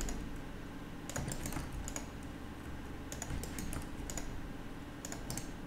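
Computer keyboard and mouse being operated: several small clusters of short clicks, a little over a second in, around three seconds in and near the end, over a faint steady low hum.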